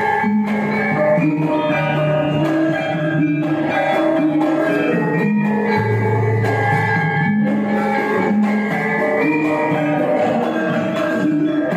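A Javanese gamelan ensemble playing the accompaniment for the Bambangan Cakil dance: bronze metallophones ring out a stepping melody of held notes over low sustained tones, with occasional drum strokes.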